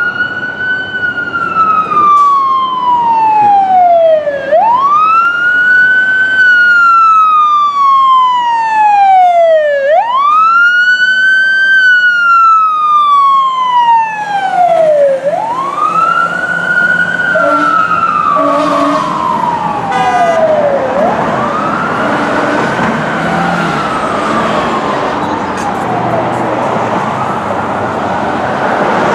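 Los Angeles Fire Department fire engine's siren wailing as the engine responds. Each cycle rises quickly and falls slowly, about five seconds per cycle. Later it fades, with traffic noise underneath.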